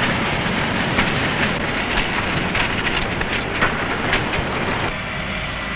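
Frozen-food packing-line machinery clattering, a dense mechanical racket with irregular clicks and knocks. About five seconds in it changes to a quieter running noise with a faint steady whine.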